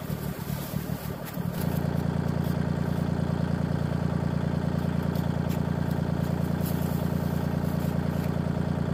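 Kubota tractor's diesel engine running steadily; about a second and a half in its note shifts and then holds even.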